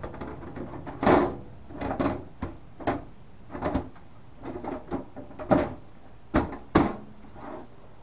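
HP Pavilion p7-1001 desktop's side cover being fitted back onto the case: an irregular string of knocks, clunks and scrapes as the panel is slid and pushed into place.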